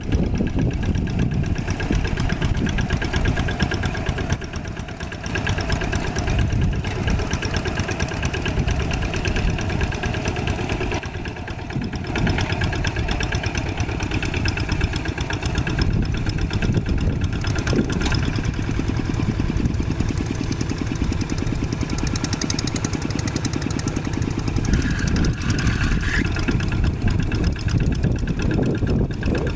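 An old tractor engine running steadily with a fast, even firing pulse, its level dipping briefly twice.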